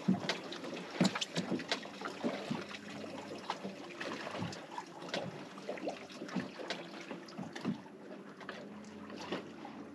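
Water lapping and slapping against the hull of a fishing boat sitting still, with light wind on the microphone and many small scattered knocks and clicks.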